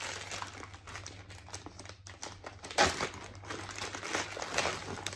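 Clear plastic packaging bag crinkling and rustling as it is handled, irregular, with one louder crinkle a little under three seconds in.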